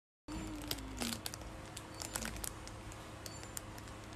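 Scattered sharp plastic clicks and light crinkling from plastic snack sealer sticks and their clear plastic packaging being handled, over a low steady hum. The sound starts suddenly just after the beginning.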